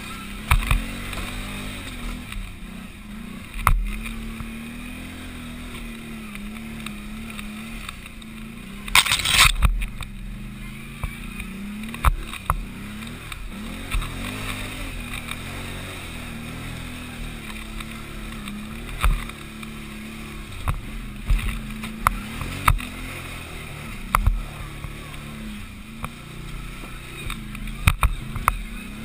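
Can-Am Outlander 500 XT ATV engine working hard uphill, its pitch rising and falling with the throttle, with frequent sharp knocks as the machine jolts over the rough trail and a brief burst of loud noise about nine seconds in.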